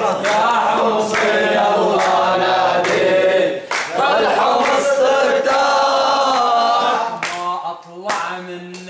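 A group of men singing an Arabic nasheed in unison, unaccompanied, with hand claps over the singing. The singing eases somewhat after about seven seconds.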